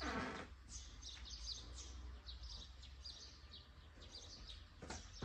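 Faint birdsong: small birds chirping on and off over a low steady background rumble.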